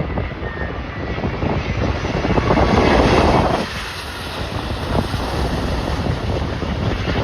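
Gusty wind buffeting the microphone, a dense rush of noise, with a stronger gust around three seconds in that drops away suddenly.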